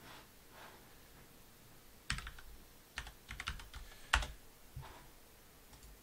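Computer keyboard keys being typed: a handful of sharp key presses in quick, uneven succession, the loudest a little after four seconds in.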